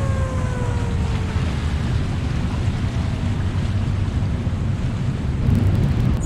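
Steady, loud rush of the river's fast water pouring past the hydroelectric station, heavy and low. Over it, the falling tone of the plant's warning siren dies away in the first three seconds; the siren signals that more turbines are being opened.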